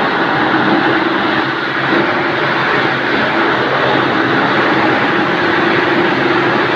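Tractor-driven wood chipper running: a loud, steady mechanical drone with a low hum.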